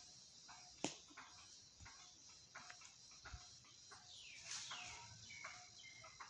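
Faint outdoor ambience: a steady high insect drone, scattered small clicks and rustles, one sharper click about a second in, and a couple of brief falling calls a little past the middle.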